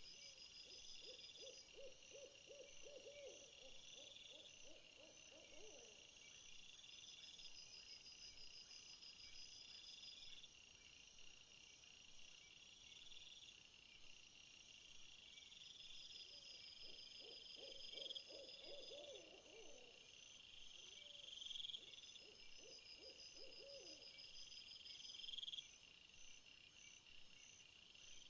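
Faint nighttime insect chorus of repeated high chirps and trills, with a low pulsed trilling call heard twice, once at the start for about six seconds and again from about 16 to 24 seconds in.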